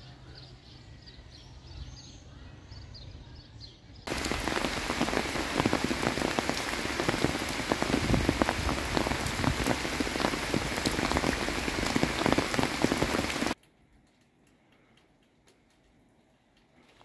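Heavy rain pouring down, a loud steady hiss that starts suddenly about four seconds in and cuts off abruptly near the end. Before and after it there is only a faint background.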